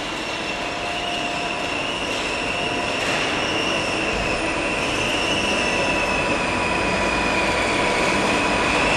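Vacuum emulsifying mixer running: a steady high motor whine that wavers slightly, over a constant mechanical hiss, slowly growing louder.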